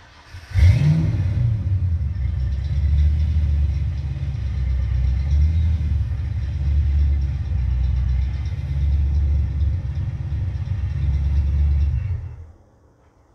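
Car engine starting about half a second in with a brief rev, then idling with a steady low rumble, and switched off abruptly near the end.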